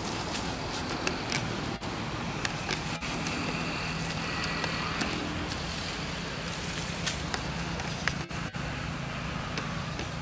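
Road traffic with a motor scooter's engine humming past, over a steady hiss and scattered sharp clicks.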